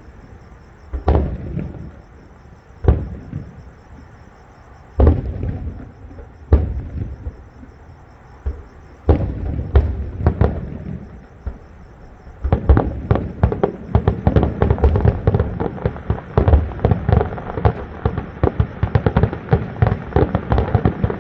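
Aerial fireworks going off: single booms a second or two apart, each with a rumbling tail. About two-thirds of the way through they give way to a fast, continuous barrage of many bangs.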